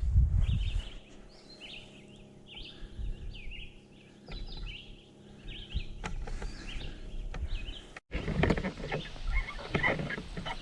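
Birds chirping: a run of short high chirps over faint background noise. About eight seconds in it cuts off abruptly to louder, busier background noise with scattered knocks.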